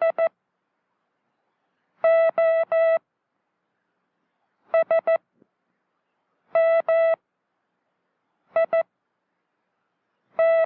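Morse code sent by an operator as a steady beeping tone, one letter at a time with about two seconds between letters. The groups are four short dits ending just after the start, then three long dahs, three dits, two dahs, two dits and one dah near the end: the letters H, O, S, M, I and T, each made only of dits or only of dahs.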